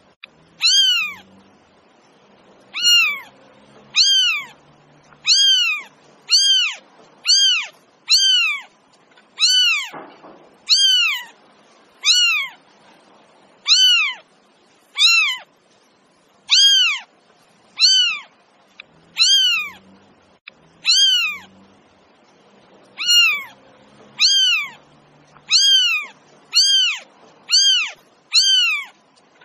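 A cat meowing over and over: short, high-pitched meows about one a second, each rising then falling in pitch, with a brief pause a little past the two-thirds mark.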